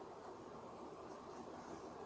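Faint steady background hiss, with a few soft rustles about a second in.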